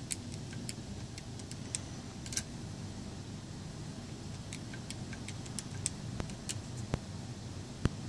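Plastic keys of a 3x4 matrix keypad clicking as a combination code is typed in, in two runs of quick clicks with a few sharper ticks near the end, over a steady low hum.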